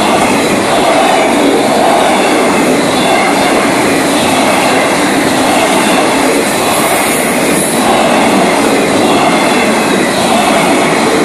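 Cars of a Florida East Coast Railway freight train rolling past at speed: a loud, steady rush of wheel and rail noise.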